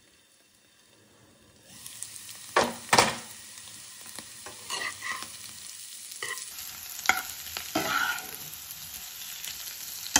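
Boiled potato cubes frying in oil in a nonstick pan, sizzling steadily, while a spatula stirs them and knocks and scrapes against the pan several times. The sizzling comes in after near silence of about a second and a half.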